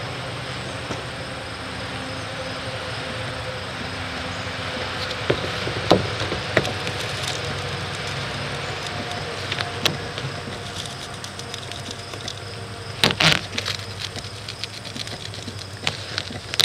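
Old rubber rear roof seal of a 2018 Aliner Expedition A-frame camper being slowly peeled off its adhesive plastic membrane: scattered crackles, with a louder burst of sharp crackling about 13 seconds in, over a steady background hiss and low hum.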